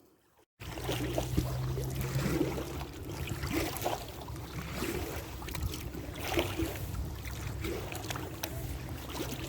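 Inflatable kayak being paddled on a lake: water splashing and lapping around the hull, with a low steady hum for the first couple of seconds.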